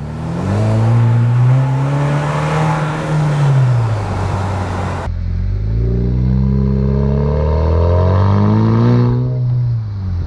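Jeep Wrangler JL's 2.0-litre turbo four-cylinder running through an aFe Power stainless cat-back exhaust while driving. The exhaust note rises under acceleration and falls back twice.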